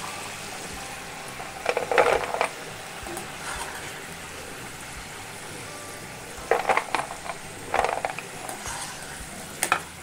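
Besan-coated chickpeas deep-frying in oil in a kadhai, a steady sizzle as they finish crisping. A wire skimmer scrapes and knocks in the pan as the fried chickpeas are lifted out, in short clatters about two seconds in, twice around seven to eight seconds, and again near the end.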